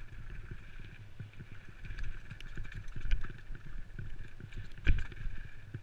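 Downhill mountain bike rattling at speed over a loose, rocky trail: a constant rumble of tyres on stone, full of irregular knocks and clatter from the bike, with one hard knock about five seconds in. Wind rumble sits low on the helmet-mounted microphone.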